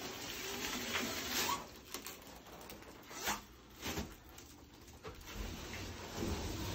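Plastic shrink wrap being cut and pulled off a sliding closet door, crinkling and rustling, with a few short, sharper tearing strokes.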